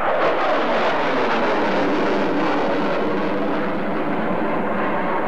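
Jet noise from an F-4 Phantom's twin J79 turbojets as it flies past overhead, loud and steady, its pitch falling over the first few seconds as it draws away.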